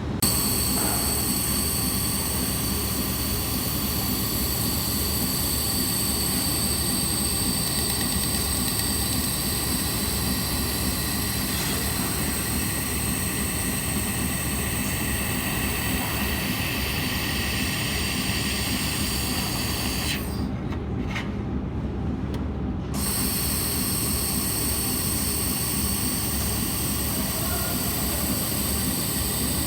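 Handheld laser welding machine running: a steady low hum with high-pitched whines over a hiss. The high whine and hiss stop for about two seconds some twenty seconds in, then come back, while the low hum carries on.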